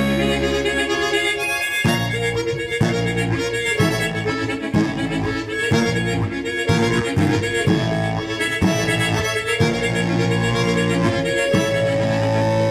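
Instrumental music led by harmonica, over a steady rhythmic chord accompaniment.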